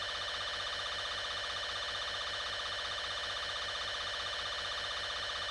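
Steady electronic buzzing tone with many overtones, holding the same level and pitch throughout: the background alert drone of a mock emergency broadcast.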